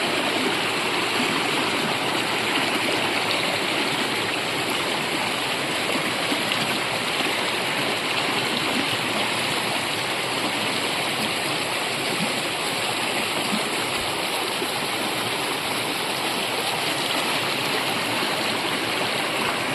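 Brook flowing: a steady, even rush of running water.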